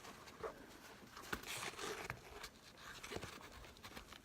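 Faint rustling of backpack fabric, with a few light clicks and knocks as it is handled and positioned.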